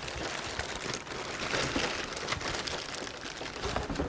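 Packaging rustling and crinkling as a water ionizer in a plastic bag is slid out of its cardboard box, with many small crackles and scrapes.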